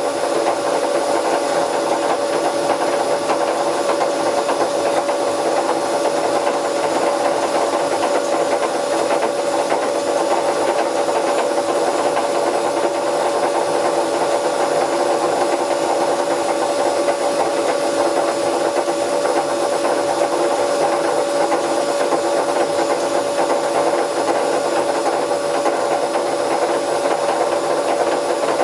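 Bauknecht WA Plus 844 washing machine running steadily, its drum turning on a damaged drum bearing: a constant whine over a rushing noise.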